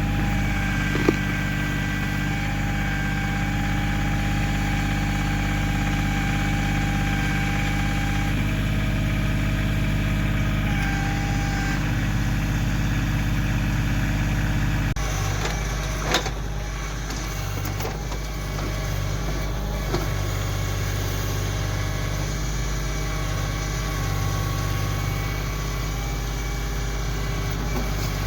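Kioti CK2610 compact tractor's three-cylinder diesel engine running steadily while the backhoe works. About halfway through, the engine note changes and starts to pulse. A few short, sharp knocks stand out over it.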